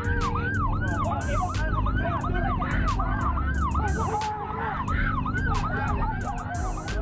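Ambulance siren at close range, its pitch sweeping rapidly up and down about three times a second, over a low rumble.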